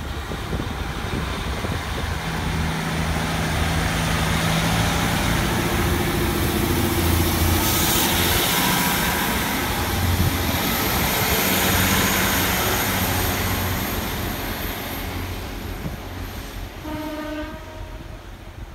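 Class 150 Sprinter diesel multiple unit pulling away and passing close by, its underfloor diesel engines swelling to a peak and then fading as it draws off. Near the end, a short train horn blast.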